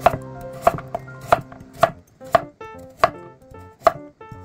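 Chef's knife slicing a peeled carrot into rounds on an end-grain wooden cutting board: seven sharp knocks of the blade through the carrot onto the board, about one every two-thirds of a second. Soft piano music plays underneath.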